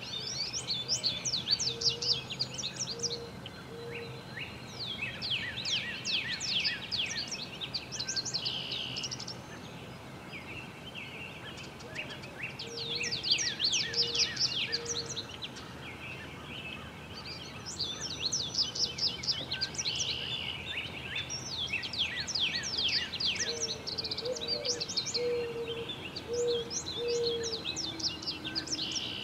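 American robin nestlings begging from the nest: bursts of rapid, shrill, high chirps, each burst lasting a second or two, recurring about six times as the adult tends the nest.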